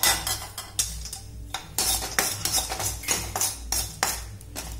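Metal spoon scraping and clinking against a kadai as peanuts are stirred and fried in hot oil, in a string of irregular strokes.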